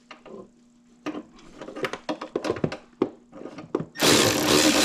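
Metal tools clicking and knocking as a socket on a swivel is fitted to a 10 mm bolt. About four seconds in, a Milwaukee cordless power tool starts running loudly, loosening the bolt.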